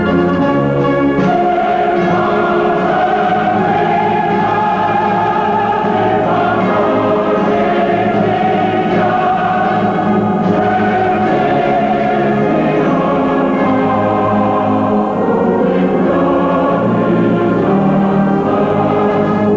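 Choral music: a choir singing long held notes over orchestral accompaniment.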